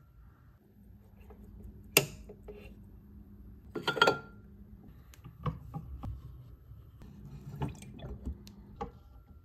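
Watch-cleaning machine being set up: the metal parts basket and lid clink and knock against the glass solution jar, with a sharp click about two seconds in and a louder glassy clatter about four seconds in, then several lighter knocks. A low steady hum sits underneath.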